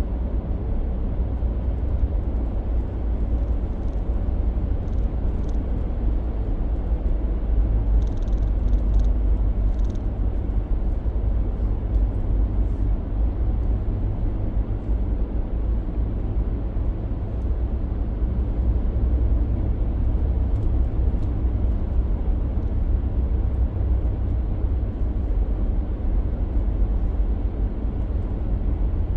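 Steady low rumble of road and engine noise heard inside the cab of a moving 2022 Toyota Tundra pickup, with a few faint ticks about eight to ten seconds in.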